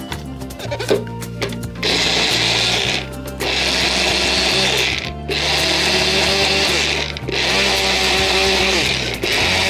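Small personal blender with an inverted cup on its motor base: a few clicks as the cup is fitted, then the motor whirs in four bursts of about two seconds with short stops between, blending the cup's contents.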